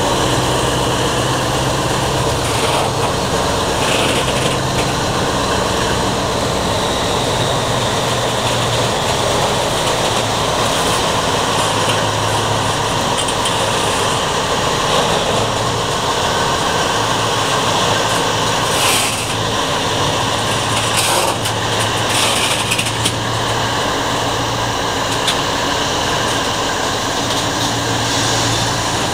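Freight train of container flatcars rolling past at close range, steel wheels running over the rails, with the low steady hum of its diesel locomotives.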